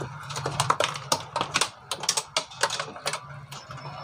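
Light, irregular clicks and taps, several a second, from hands handling a TV set and its cables.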